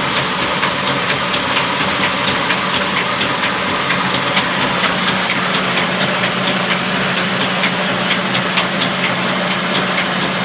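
15 HP three-phase electric motor running steadily, a constant low hum over a rushing noise, with faint irregular ticks, running normally on its newly fitted starter.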